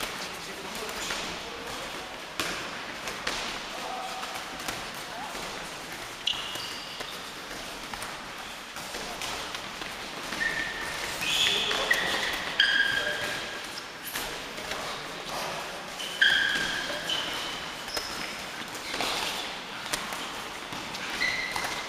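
Boxing gloves thudding on focus pads and gloves in repeated quick punches, mixed with short high squeaks of training shoes on a sports-hall floor, the squeaks coming mostly in the second half.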